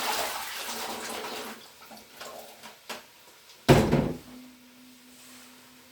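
Diced potatoes and sweet potatoes tipped into the stew pot, a rushing rattle for about a second and a half, then a single loud knock a little under four seconds in, followed by a faint steady hum.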